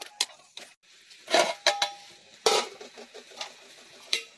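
Metal cookware being handled: a pot and a steel plate knock and clink, with a few sharp knocks and two louder clatters, one leaving a brief metallic ring.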